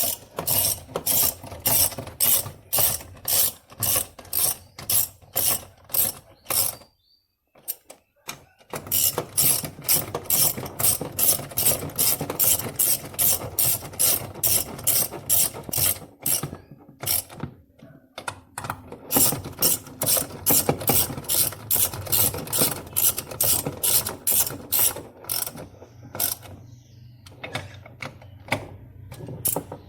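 Ratchet wrench clicking in long, even runs of about three clicks a second, with short pauses between runs, as bolts are turned.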